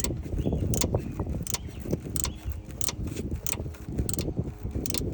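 Snap-on Blue-Point BXOR704 ratcheting box wrench being worked in the reversed direction, its ratchet giving sharp metallic clicks about every half second as the handle swings back and forth, over a steady low rumble.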